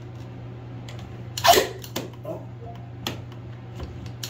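Cordless battery nailer firing a nail into PVC cove molding: one sharp shot about a second and a half in, followed by a few lighter clicks, and a second shot just as it ends.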